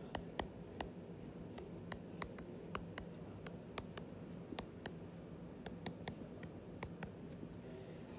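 Stylus tip tapping and clicking on a tablet's glass screen while handwriting a formula: irregular sharp ticks, about three a second, over a faint steady hum.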